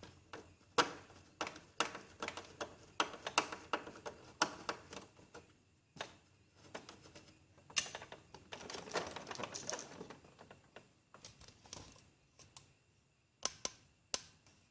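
A screwdriver undoing the screw that holds the waste ink tank of an Epson L360 printer, with irregular clicks and knocks of the screwdriver, screw and plastic housing, and a short stretch of rustling handling about two-thirds of the way through.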